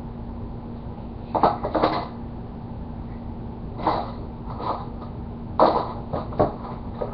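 Rummaging through a tackle box: short clatters and rattles of small items about once a second, over a steady low hum.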